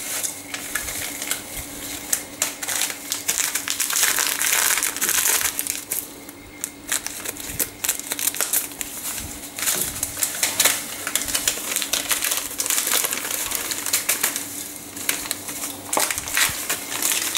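Gelatin powder sachets crinkling and rustling as they are handled, snipped open with scissors and shaken out into a bowl, in a dense run of small crackles and clicks.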